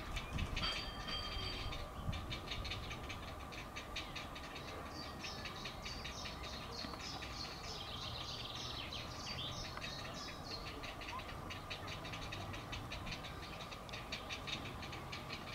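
Heron chicks begging in the nest: a rapid, rhythmic ticking chatter that runs on steadily.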